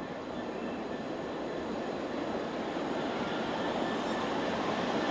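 Distant approaching Class 66 diesel freight locomotive, a steady rumble that grows louder throughout.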